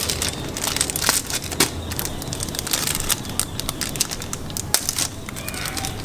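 Thin plastic bag crinkling and crackling in quick, irregular bursts as it is handled and holes are poked into it.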